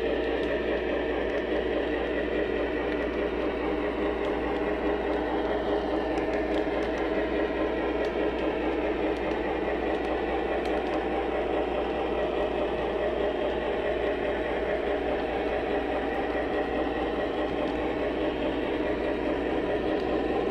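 O gauge model train flat car rolling steadily along the track. The wheels make a continuous rumble with faint clicks over the rail joints, picked up close by the action camera riding on the car.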